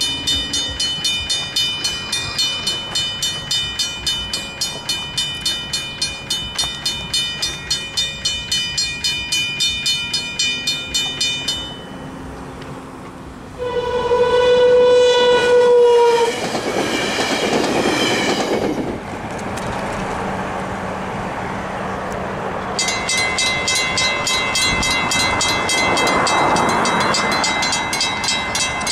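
Mechanical railroad crossing bells ringing with rapid strokes, about three to four a second. The first bell stops about twelve seconds in; a train horn then sounds for about three seconds, followed by the rumble of the train. Near the end another crossing's mechanical bell rings over continued train noise.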